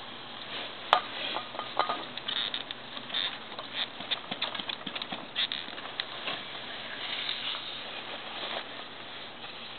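Aerosol chain lube sprayed onto a motorcycle chain in a series of short, irregular bursts, with a sharp click about a second in.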